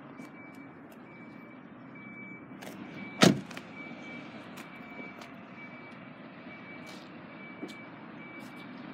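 A Volkswagen Polo's front door being shut with a single solid slam about three seconds in, over a steady low rumble. A faint high beep repeats roughly every 0.7 seconds throughout.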